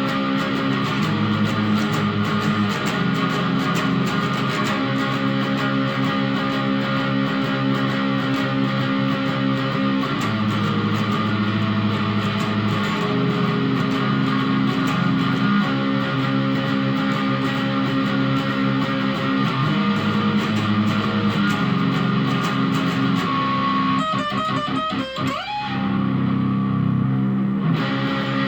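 Guitar played continuously, recorded on a phone's microphone: sustained chords that change every few seconds, with a brief warbling dropout near the end.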